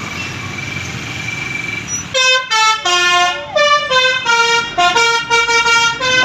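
Bus telolet 'basuri' musical horn playing a quick melody of separate pitched notes, starting about two seconds in. Before it there is a steady noise of vehicles.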